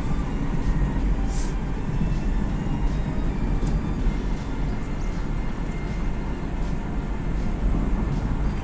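Cabin noise of a 2008 Hyundai Accent petrol car cruising: a steady low rumble of engine and tyres on the road, heard from inside the car.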